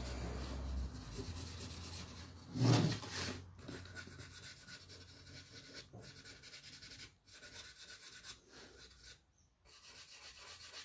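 Paintbrush bristles scrubbing paint onto the wooden edge of a box in repeated strokes broken by short pauses, with a louder knock about three seconds in.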